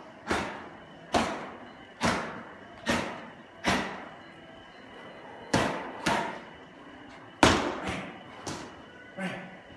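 Boxing gloves landing punches with sharp smacks on the sparring partner's padded gloves, about ten blows. They come in two quick runs with a pause of about two seconds in the middle.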